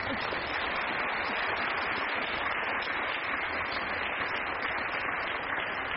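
Audience applauding: a steady, dense clapping that sets in all at once and holds throughout.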